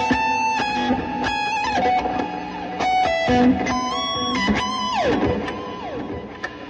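Electric guitar sounding sustained notes that step between pitches, with a downward slide about five seconds in, then dying away toward steady amplifier hum near the end.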